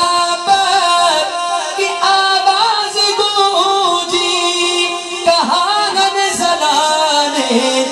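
A man singing a naat into a microphone over a PA system, drawing a line out in long, held notes that bend and waver in pitch.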